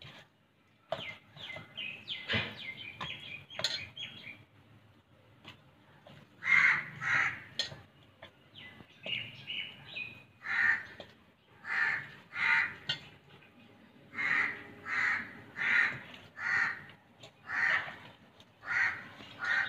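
Crows cawing over and over, the calls coming in quick pairs about once a second from about six seconds in.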